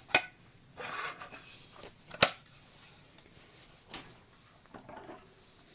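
Clicks and a short scrape as the cover of an LG vacuum cleaner motor (YDC01-20A) is handled and fitted onto the motor. One sharp click a little past two seconds in is the loudest, with a few fainter clicks after it.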